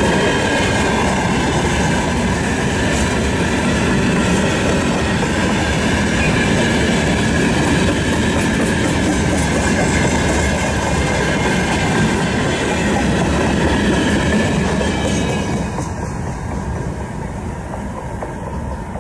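Open-top freight wagons of a long freight train rolling past, steel wheels running on the rails with a faint high squeal. The noise falls away about fifteen seconds in as the last wagon passes and the train moves off.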